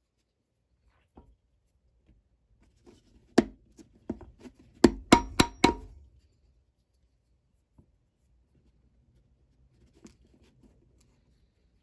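Sharp hammer strikes on the boot: one strike about three and a half seconds in, a few lighter taps, then a quick run of four strikes at about four a second.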